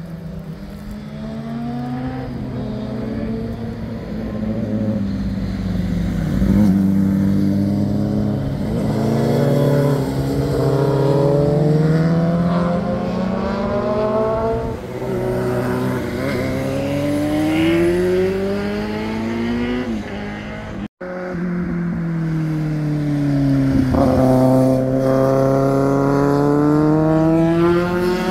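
Sport motorcycles passing through hairpin bends one after another, their engines revving up through the gears, the pitch climbing and then dropping at each shift or roll-off, sometimes two bikes at once. The sound cuts out for an instant about two-thirds of the way through.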